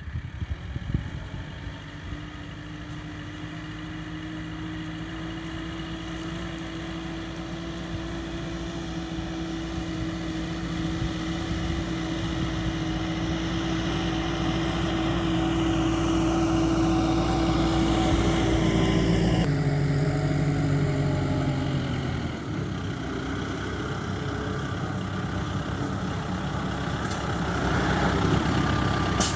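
Kubota M4073 tractor's four-cylinder diesel engine running steadily, growing louder over the first two-thirds, with an abrupt change in its sound about two-thirds of the way through.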